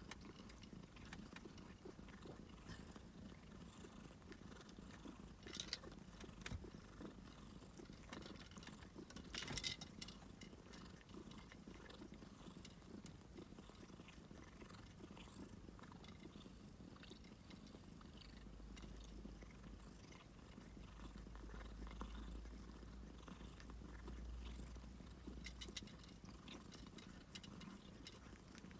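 A domestic cat purring quietly and steadily, with two brief clicks about six and ten seconds in.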